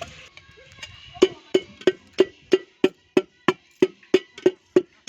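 Chillies being pounded and crushed with a hand tool: a steady run of hollow knocks, about three a second, starting about a second in.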